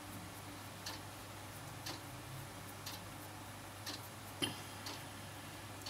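Clock ticking faintly and evenly, about once a second, with one sharper click about four and a half seconds in, over a faint steady low hum.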